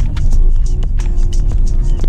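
Background music with a steady, quick beat, held notes and heavy bass.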